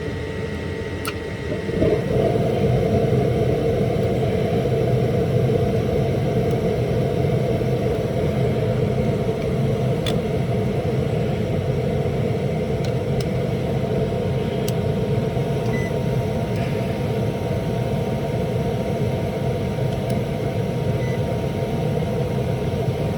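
Gas furnace running on a heat call: a steady mechanical hum that steps up about two seconds in to a louder, even rush of air and then holds steady.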